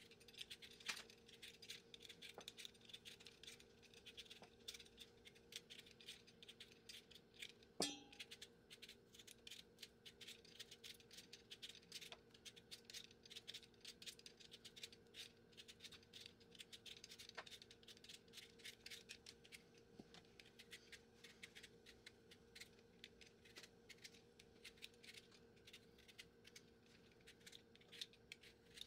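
Faint, quick scraping of a handheld vegetable peeler shaving the skin off raw potatoes, stroke after stroke, with one sharper knock about eight seconds in.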